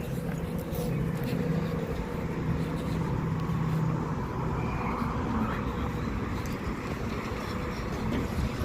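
Steady low rumble of vehicle traffic, with an engine hum that weakens about halfway through.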